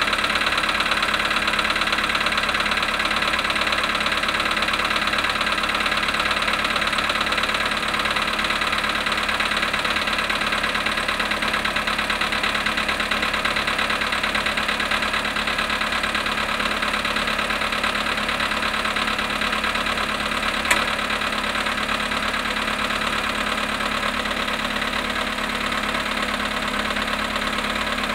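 Volkswagen Polo sedan engine idling cold after standing 18 hours at −5.5 °C, with a steady rapid knock running through the idle. One sharp click about two-thirds of the way through.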